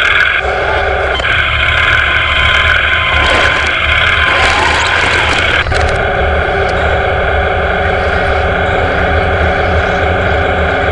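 Radio-controlled model tank running, its electric drive motors and gearbox giving a loud, steady whine over a low rumble; the pitch pattern changes abruptly about halfway through.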